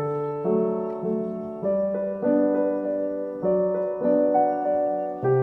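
Slow, gentle piano music, a new chord struck about every half second to a second and left to ring.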